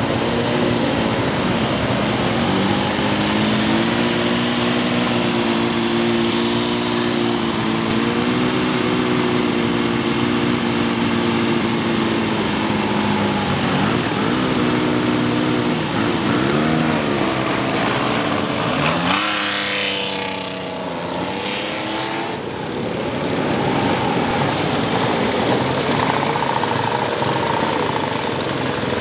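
Several motorcycle engines running together, idling with blips of the throttle, then a sharp rising rev about two-thirds of the way through as a bike accelerates away.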